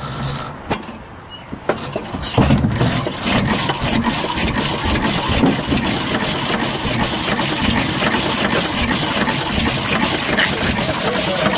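Small antique vertical single-cylinder gas engine turned over by hand on its flywheel, catching about two seconds in and then running with a rapid, even beat of firings.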